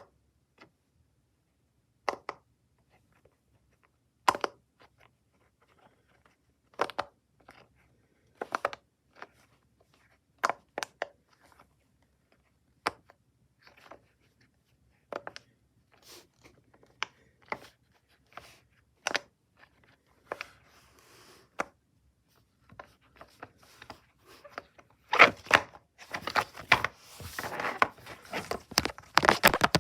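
Push-pop bubble fidget toy being pressed: single sharp pops every second or two, then many pops in quick succession near the end.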